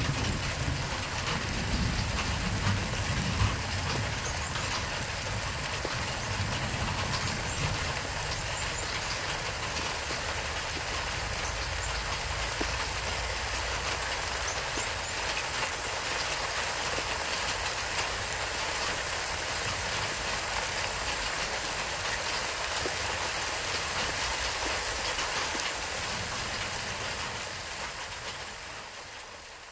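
Steady rain sound, an even hiss with no tone in it. A low rumble under it dies away in the first few seconds, and the whole sound fades out near the end.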